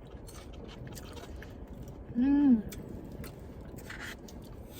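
A person chewing and biting into cheesy beef tacos dipped in consommé, with wet mouth clicks, and one short "mmm" hum of enjoyment about two seconds in.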